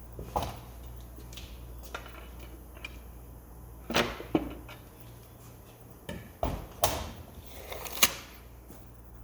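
Tools and parts being handled on a transmission: scattered sharp clicks and knocks, loudest about four, seven and eight seconds in, over a steady low hum.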